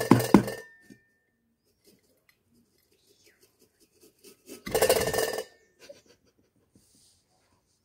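Fingers tapping quickly on the base of an upturned metal cake tin, a short run of taps in the first half second, done to loosen the baked cake. About five seconds in, a louder metallic scrape and clatter lasting about a second as the tin is lifted off the cake.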